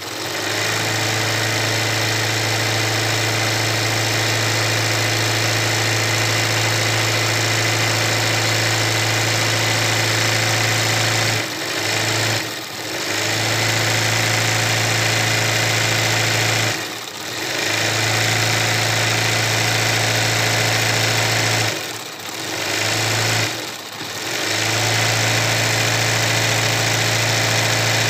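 Electric sewing machine running steadily at speed, stitching free-motion embroidery through fabric held in a hoop. It briefly slows or stops five times in the second half, as the hoop is shifted.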